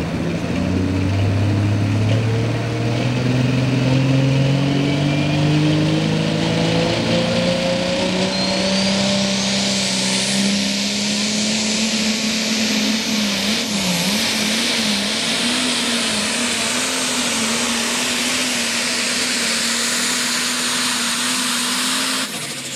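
Pulling tractor's engine under full load: revs climb steadily through the first half, then hold high with a brief wavering in pitch, while a high whine rises and holds. Near the end the engine drops off suddenly and the whine falls away.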